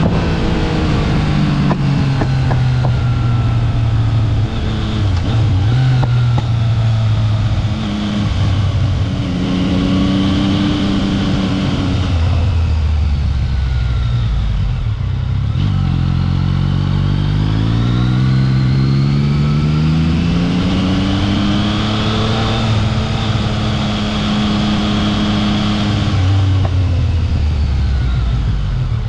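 Yamaha XSR900's inline-three engine under way, repeatedly accelerating and easing off, its pitch climbing, holding and dropping with changes of throttle and gear.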